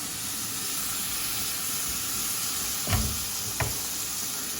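Tomato and onion masala sizzling in oil in a cooking pot, a steady sizzle. Two short knocks about three seconds in, as a lid is set on the pot.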